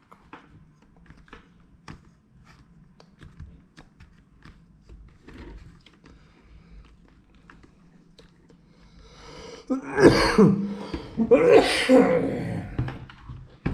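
Faint scattered taps and clicks, then about ten seconds in two loud bursts of a person coughing and clearing the throat.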